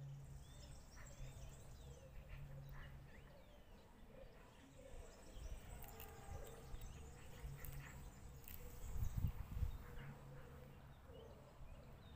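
Outdoor field recording: scattered short bird chirps over a steady low rumble, with a louder low rumble about nine seconds in.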